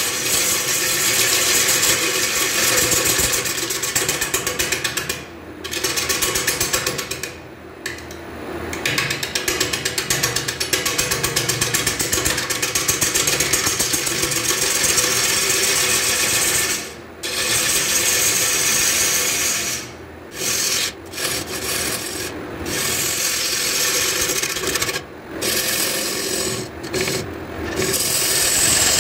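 Turning tool cutting into a spinning Albizia lebbeck (siris) dish blank on a wood lathe: a steady, bright rasping cut. About ten short breaks in the cut drop it briefly to a quieter running sound.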